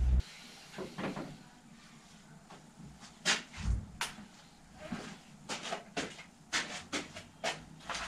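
Irregular metallic clicks, clinks and knocks of hand tools and bicycle parts being handled and set down during a bottom-bracket repair, about a dozen in all, sharpest around the middle. A low hum cuts off right at the start.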